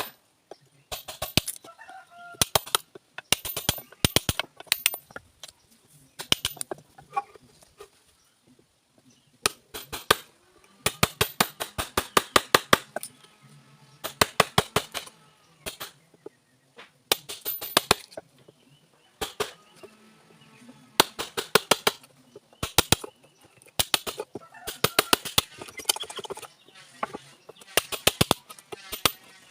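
Hammer blows on a wood chisel cutting a mortise into a wooden door frame: quick runs of sharp strikes, several a second, with short pauses between runs.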